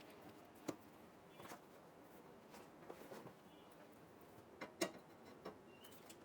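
Scattered light clicks and taps from PC parts being handled, over faint room tone; the loudest is a quick pair of clicks about five seconds in.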